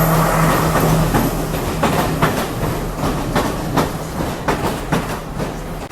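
Passenger train running on the rails, its wheels clacking irregularly over the track joints, over a low steady hum that fades about a second in.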